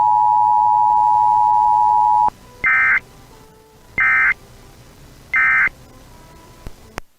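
Emergency Alert System attention signal, a steady two-tone note, cutting off about two seconds in. It is followed by three short screeching data bursts about a second and a half apart, the SAME digital end-of-message code that closes an alert. A click comes near the end.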